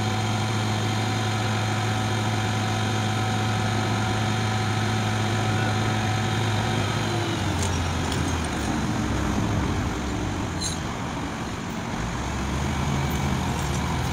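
Diesel engine of a Demag AC 615 mobile crane running steadily at raised revs, then dropping back to a lower idle about seven seconds in.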